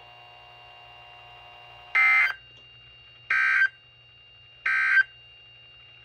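Three short bursts of data tones, about 1.3 s apart, from a Midland NOAA weather alert radio's speaker: the SAME end-of-message code that closes an alert broadcast. A faint steady hum lies between the bursts.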